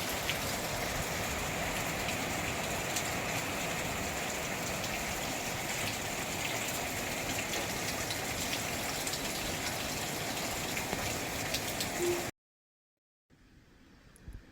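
Steady hurricane rain falling, an even hiss with scattered drop ticks. It cuts off abruptly about twelve seconds in, leaving a much quieter background near the end.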